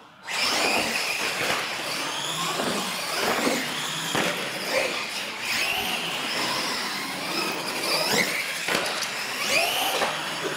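Two Pro Modified R/C monster trucks launching and racing: their motors whine, rising and falling in pitch again and again, with tyres squealing on the smooth concrete floor. It starts suddenly just after the beginning.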